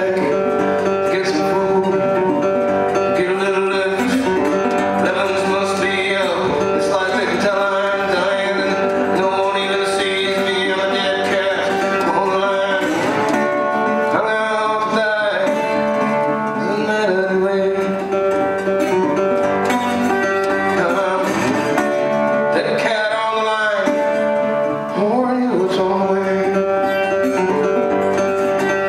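Acoustic guitar playing a blues tune, steadily picked, with notes sliding up and down every few seconds.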